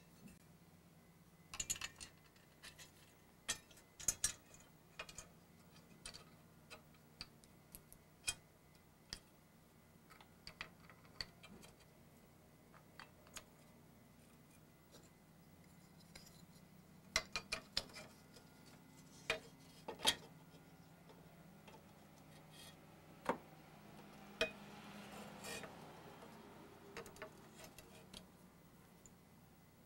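Irregular light clicks and taps of wooden handle scales being handled and test-fitted against a machete's steel tang on a wooden workbench, some in quick clusters of several knocks.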